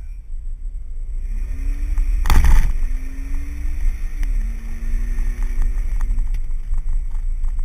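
Ford Flex's 3.5-litre twin-turbo EcoBoost V6 accelerating hard, its exhaust venting through a 3-inch boost-activated cutout that the catalytic converters keep fairly quiet, heard over steady road rumble. The engine note rises, holds, then steps down at a gear change about four seconds in, with a brief loud burst of noise about two and a half seconds in.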